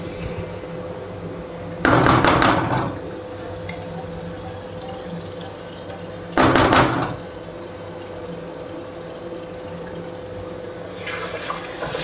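Mashed masala paste sizzling and bubbling in hot ghee in a wok, with two louder bursts of sizzling and stirring about two seconds and six and a half seconds in as the paste is worked with a spatula.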